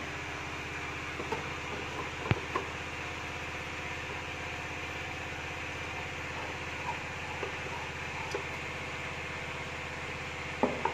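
Steady machine hum, like an engine or motor running, under a few sharp metallic clicks and knocks of a hand tool working on a stripped motorcycle frame. The loudest knock comes about two seconds in.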